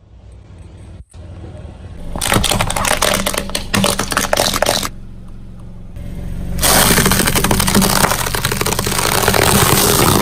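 A car tyre rolling over and crushing brittle objects while the engine runs low underneath: two long stretches of dense crackling and crunching, the first starting about two seconds in and the second about six and a half seconds in, with a quieter gap between.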